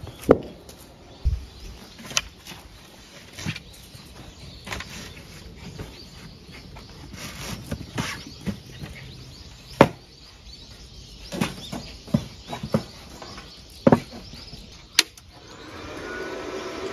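Scattered knocks and clatter of gear and a fabric sheet being handled and set down. Near the end a sharp click, then a steady hum starts as the EENOUR MIG120L inverter welder is switched on and its cooling fan runs.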